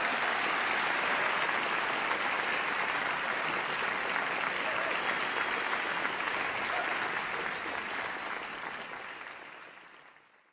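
Concert audience applauding steadily, fading out over the last two seconds or so.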